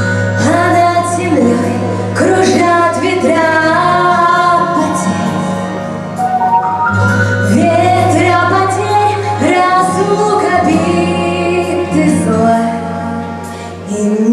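A female voice sings a melody over a sustained instrumental backing.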